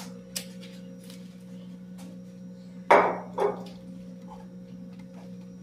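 Two sharp knocks about three seconds in, cookware such as a utensil or lid striking a cooking pot, with a few faint clicks earlier, over a steady low hum.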